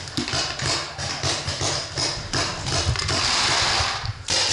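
Paintballs poured from a pod into the hopper during a reload, a dense rattling clatter that swells into a steady rush near the end and stops abruptly.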